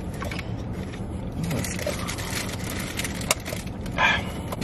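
Steady low hum inside a car cabin, with scattered clicks and crackles of foam takeout containers and cups being handled.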